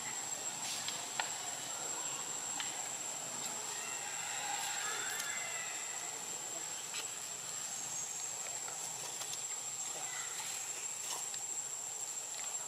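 Steady high-pitched insect drone, one unbroken tone, over a low background hiss, with a few faint clicks scattered through.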